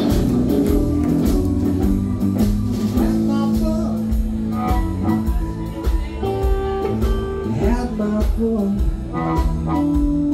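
Live blues band playing: electric guitars, bass guitar and drums, with a Hammond organ, a steady beat and held notes.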